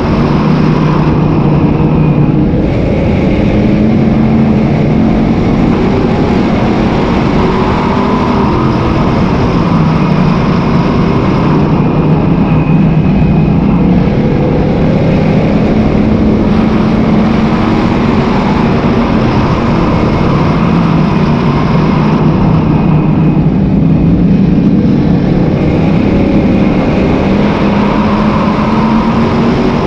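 Sportsman modified dirt-track race car's V8 engine heard from inside the cockpit, running hard on and off the throttle, its pitch rising and falling about every ten seconds.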